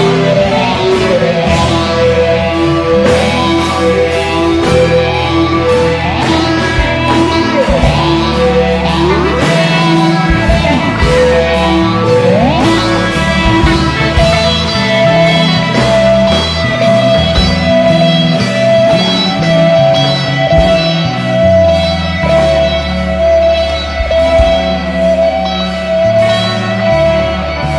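Loud, reverberant rock music played by a band of rock rhythm-section instruments, with electric guitar to the fore. There are several rising guitar slides around ten to thirteen seconds in, then a long held note.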